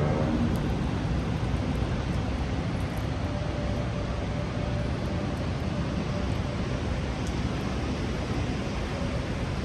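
Heavy rain falling steadily, an even hiss with a faint city rumble beneath it. A faint drawn-out tone sounds for a couple of seconds about a third of the way in.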